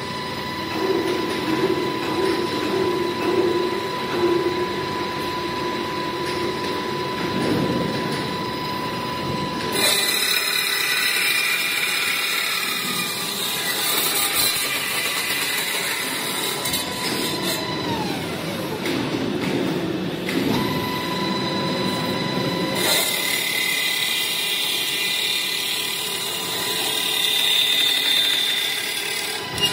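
425CNC automatic metal circular saw pipe-cutting machine running through its cycle on metal tube: a steady whine from the spinning saw, broken about ten seconds in and again near the end by long stretches of harsher, louder sawing noise as the blade cuts, with a falling whine in between.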